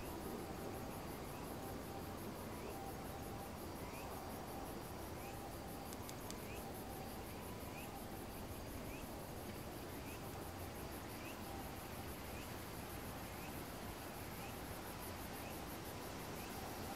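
Insects trilling in a fast, evenly pulsing high-pitched buzz, with a short rising chirp repeating about once a second, over a faint low background rumble.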